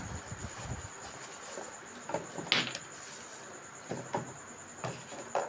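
A few light clicks and knocks of plastic mini vacuum cleaner accessories being handled, the sharpest about two and a half seconds in, over a faint steady high-pitched tone.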